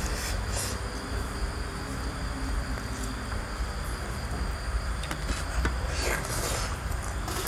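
Insects chirring steadily in a high, even tone over a low background rumble, with faint handling noises as a roast chicken is torn apart by hand.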